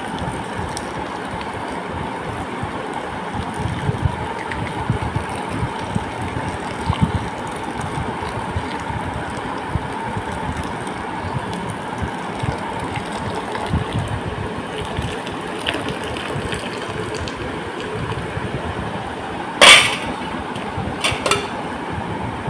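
Milk being poured onto a plate of vermicelli and grated coconut, over a steady background hum. Near the end a metal spoon clatters sharply against the plate, then clicks a few more times as the mixture is stirred.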